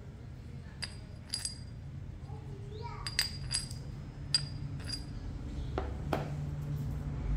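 Sharp metallic clinks, about nine in irregular ones and twos, each with a short high ring: a ring magnet and a small metal disc knocking against each other and a large copper coin as they are handled in a magnet test of the coin.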